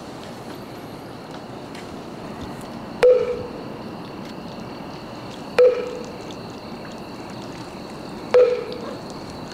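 Three slow, evenly spaced hollow knocks, about one every two and a half to three seconds, each a sharp strike with a short ringing tone that fades quickly. Underneath is a steady hiss with faint high steady tones.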